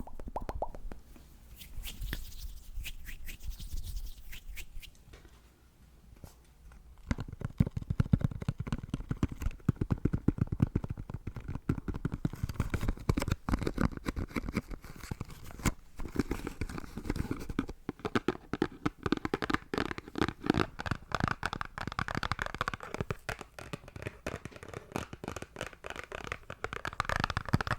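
Close-miked ASMR tapping and mouth sounds: a dense run of rapid clicks and taps. It is lighter for the first few seconds, dips briefly, and is fuller and busier from about seven seconds in.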